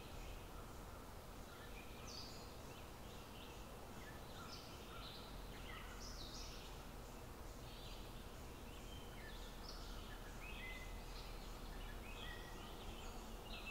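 Faint outdoor ambience of many birds chirping and calling, short calls overlapping one another, over a steady low background noise.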